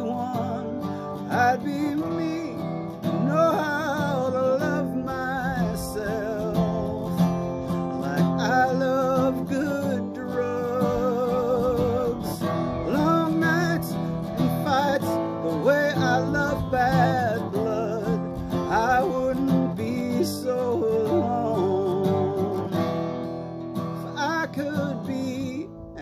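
Steel-string acoustic guitar strummed in steady chords while a man sings a wavering, vibrato-laden melody over it.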